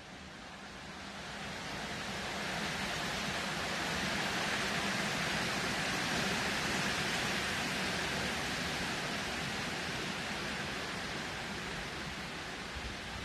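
Strong wind blowing, a steady rushing noise that builds over the first two seconds or so and eases slightly near the end.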